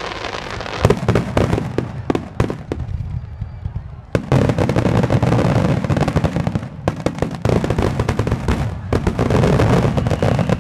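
Fireworks display: aerial shells bursting in rapid succession, a dense run of booms and crackle. It thickens about four seconds in, breaks off briefly about two-thirds through, then goes on as densely as before.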